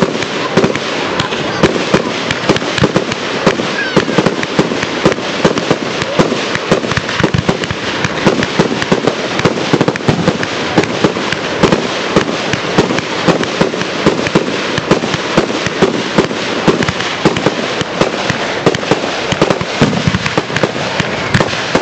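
Aerial fireworks display: a dense, continuous barrage of shell bursts and crackling, with sharp bangs several times a second.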